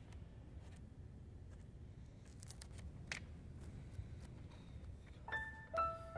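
A few faint paper rustles as pages of a thick book are turned over quiet room tone, then piano music comes in about five seconds in.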